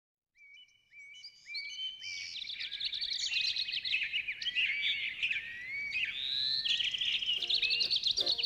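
Many small birds chirping and whistling together in a dawn chorus, fading in over the first two seconds into a dense, steady stream of short, overlapping calls.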